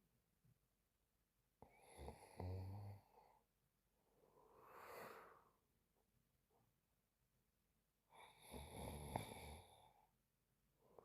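A sleeping woman snoring quietly: two snores about six seconds apart, each a low rattling sound, with a softer airy breath between them.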